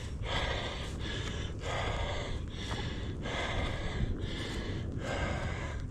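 A man breathing hard, huffing and puffing in heavy breaths roughly every second, out of breath from climbing a steep hill.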